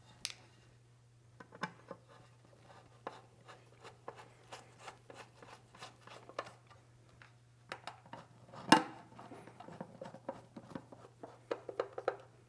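Metal access cover being refitted on an electric water heater and its screws driven in with a screwdriver: scattered light clicks, taps and scrapes, with one louder knock about two-thirds of the way through. A faint steady low hum sits underneath.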